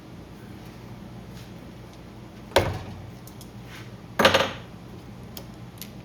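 Hard little clacks of carburetor parts being handled and fitted back onto a small generator engine: one sharp clack about two and a half seconds in, then a louder short clatter about four seconds in, with faint ticks between.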